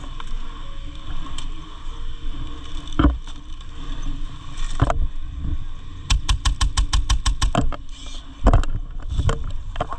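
Airsoft guns firing: single shots about three and five seconds in, then a rapid string of about a dozen shots about six seconds in, and more single shots near the end, over low rumbling wind and handling noise on the microphone.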